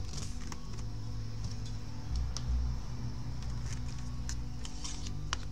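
Scattered light clicks and taps from a laptop being handled and turned over on a workbench, over a steady low hum.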